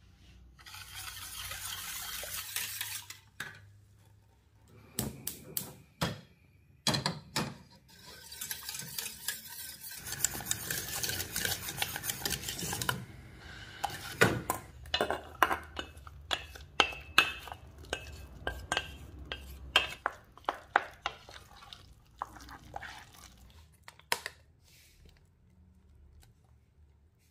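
A kitchen utensil stirring and scraping in a bowl or pot, followed by a run of quick clinks and taps of the utensil against the dish.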